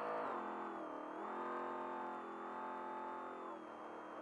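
Trophy truck's race engine pulling hard under acceleration, heard from inside the cab. Its pitch drops sharply twice as it shifts up a gear, just after the start and again near the end, and climbs between the shifts.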